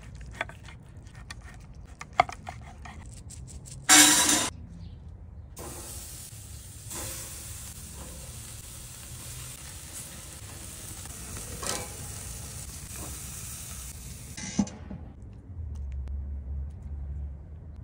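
Skewered flank steak pinwheels sizzling over a charcoal grill: an even hiss lasting about nine seconds in the middle. Before it, a knife slicing the rolled steak between skewers makes small clicks, and a short, very loud rush of noise comes about four seconds in.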